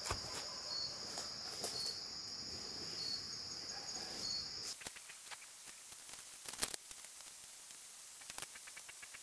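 An insect's steady high buzz, with short higher pips repeating a little under once a second, cuts off suddenly a little under five seconds in. After it, a few sharp cracks and rustles, and near the end a fast, faint ticking starts.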